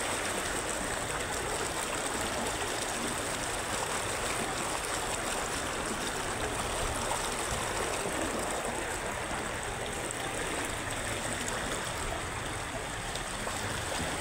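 Floodwater from a river that has burst its banks, rushing in a shallow sheet across a compound and along a wall: a steady rushing of flowing water.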